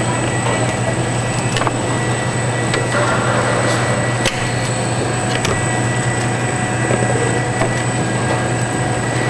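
Tomato sorter-sizer's cup conveyor running: a steady low machine hum with a thin high whine and scattered clicks and clacks from the moving cups.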